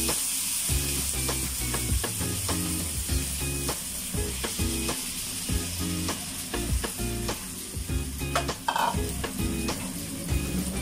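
Marinated beef strips sizzling as they fry in oil with sliced onions and garlic in a frying pan.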